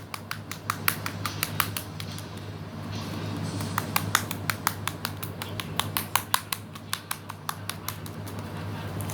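Fluffy slime being kneaded and squeezed by hand, giving off an irregular run of sharp little pops and clicks as trapped air bursts, over a steady low hum.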